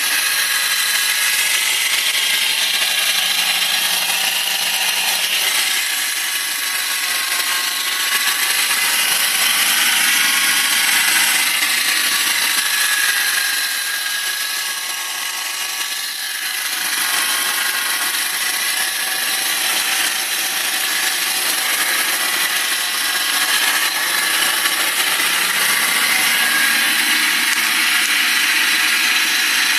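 BMW 318i's M43 four-cylinder petrol engine running with a steady, high-pitched whirring mechanical noise, a strange noise whose cause the owner does not know. The level dips a little about halfway through, then comes back.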